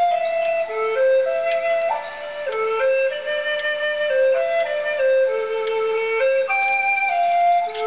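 Flute music: a slow melody of held notes stepping up and down.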